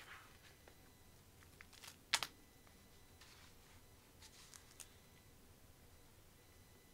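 Thick glossy pages of a large hardcover art book being turned and handled: a few soft paper rustles and flicks, the loudest a sharp flap a little over two seconds in.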